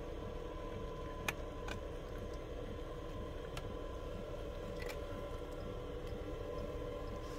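A steady low hum with a few sharp, faint clicks scattered through it: a cat crunching dry food from its bowl.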